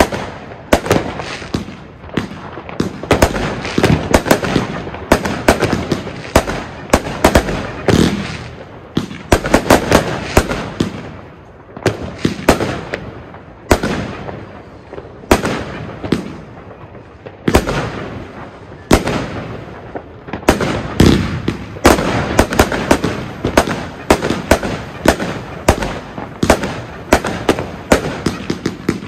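Argento "Walküre" 131-shot compound firework cake (30, 25 and 20 mm calibres) firing shot after shot: a rapid, dense string of launches and bangs that thins out briefly in the middle, then picks up again.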